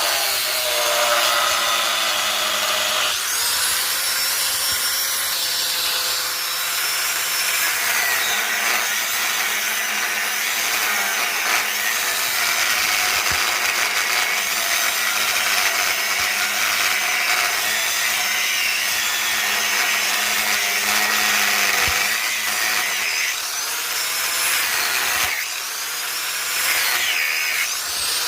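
An electric grinder working the steel of a chainsaw bar: a steady whine over a harsh rasp, the pitch sagging and recovering a few times as the tool is pressed into the metal.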